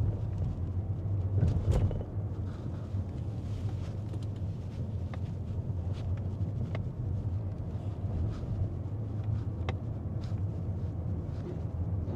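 Steady low rumble of a car driving, with a few faint clicks scattered through it.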